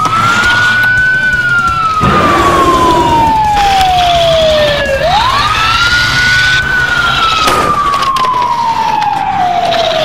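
Police siren wailing: two long cycles, each a quick rise in pitch followed by a slow fall.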